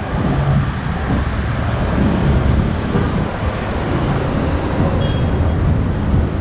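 Loud, steady low rumble of open-air ambience, with no one speaking.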